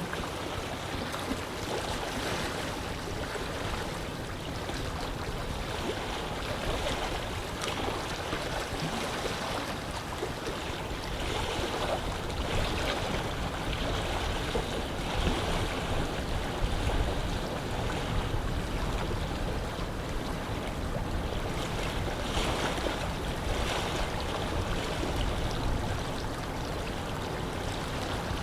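Wind over a lake with small waves lapping and splashing, a steady rushing with many little splashes, a little louder through the middle.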